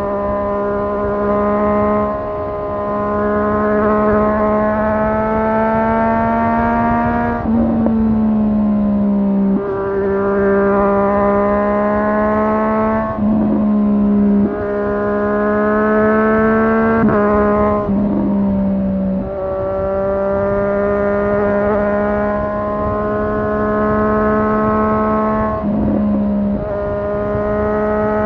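Triumph Street Triple 765 R's in-line three-cylinder engine pulling under throttle while riding, its pitch climbing gradually and then dropping sharply with a brief break about every three to six seconds, as it changes up through the gears.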